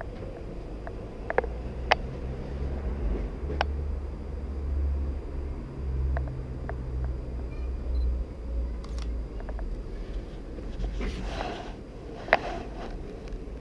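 Sony a7R II camera's shutter firing several single shots a few seconds apart, each a sharp click, over a steady low rumble. A short rustle near the end.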